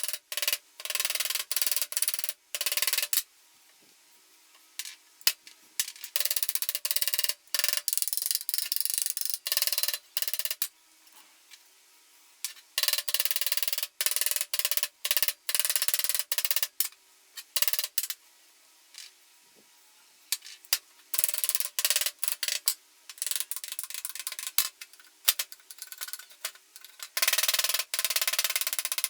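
Hand scraping and rubbing on metal parts in many short, choppy strokes that start and stop abruptly, with quiet gaps between them.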